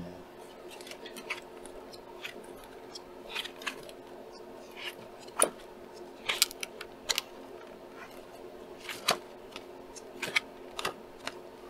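Paper handling: scattered soft rustles and taps as the pages of a paper wall calendar are leafed through, with a sharper snap about halfway through. A steady low hum runs underneath.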